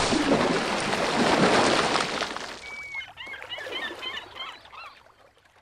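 Logo sound effect: a loud rushing swoosh of noise for about two and a half seconds, then a short whistle and a quick flurry of bird chirps that fade away.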